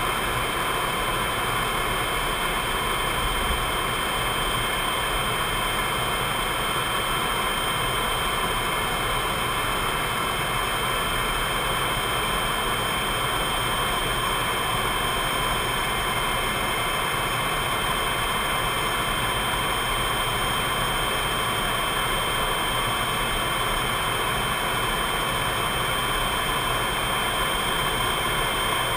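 Steady flight-deck noise of a C-5 Galaxy in cruise: airflow hiss over the cockpit with the even whine of its turbofan engines, unchanging throughout.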